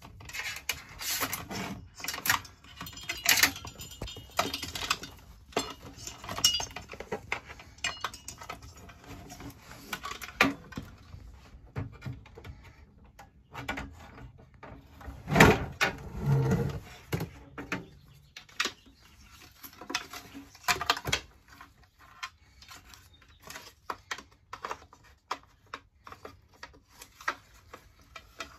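Metal clatter from handling an RV power converter and its sheet-metal housing: scattered clicks, knocks and rattles as the unit and a metal panel are pulled out and moved, with one loud knock about halfway through.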